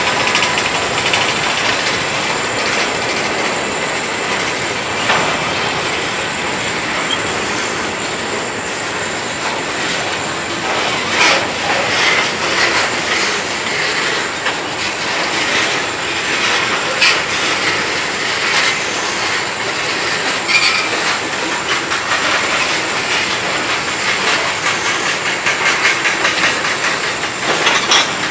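Freight cars of a mixed freight train (boxcars, a covered hopper and tank cars) rolling past, their steel wheels clicking steadily over the rail joints.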